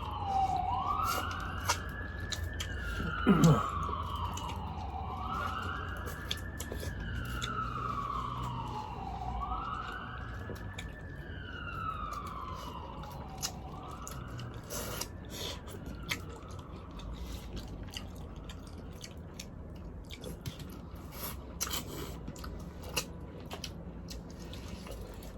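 An emergency vehicle's siren wailing in a slow rise and fall about every four to five seconds, fading out after about fifteen seconds. Close by, scattered crunching and clicking of crab and shellfish being eaten and chewed.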